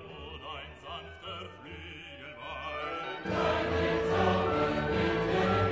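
Music with choir-like singing. About three seconds in it turns abruptly louder and fuller.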